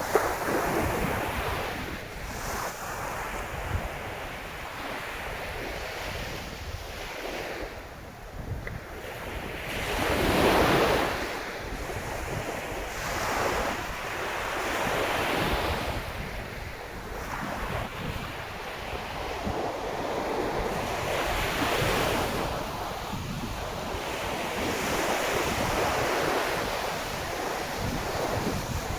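Sea of Japan waves surging onto the shore and washing back, swelling every few seconds and loudest about ten seconds in, with wind noise on the microphone.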